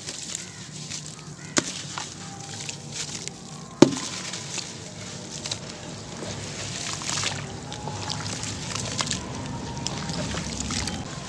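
Hands crumbling soft charcoal-cement chunks into a basin of water and swishing through the muddy water, with steady sloshing and splashing. Two sharp knocks about a second and a half and four seconds in, the second the loudest.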